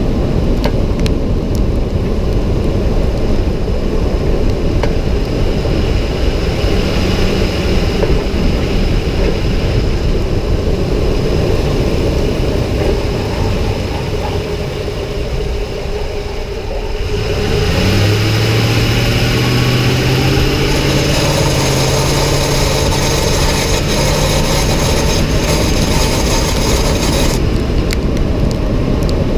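2006 Ford F-150 under way: a steady rumble of engine and road noise, then about 18 s in a low drone that rises slowly in pitch as the truck accelerates. This is the kind of noise the owner hears only on the throttle, starting around 1200 RPM and getting louder with more throttle and speed; its cause is unknown.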